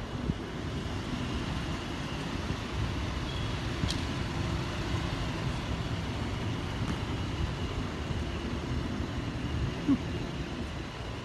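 Steady low rumble of road traffic, with a short click about four seconds in and a brief knock near the end.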